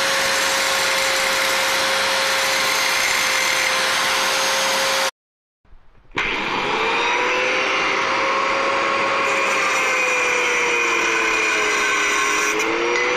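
Angle grinder with a cutting disc running steadily as it cuts through the metal housing of a scrapped Sanyo water pump. About five seconds in the sound breaks off for half a second, then picks up again, its pitch sagging and recovering as the disc bites into the metal.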